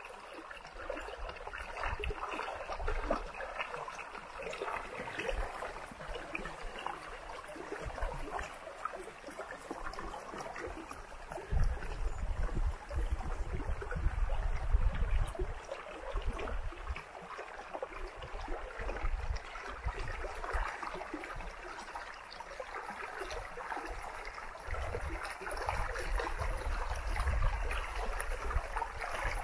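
Shallow mountain creek running over stones, a steady rush of water. A low rumble comes and goes over it, about twelve seconds in and again near the end.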